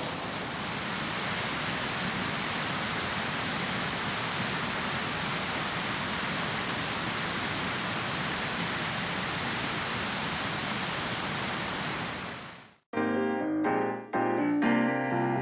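Steady, even outdoor rushing noise, fading out near the end, followed by piano music starting up.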